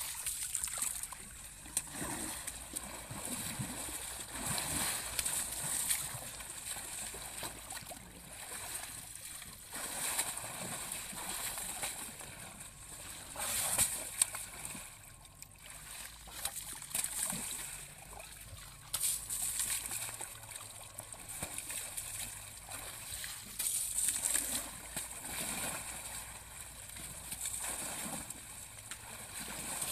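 Muddy pond water splashing and sloshing as a young Asian elephant wades in it and throws water with her trunk, coming and going in uneven surges.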